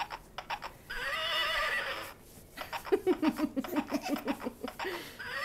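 Recorded horse whinnies played by a plush toy horse's sound button: a few quick clicks at the start, a wavering neigh about a second in, a longer pulsing neigh falling in pitch in the middle, and another wavering neigh near the end.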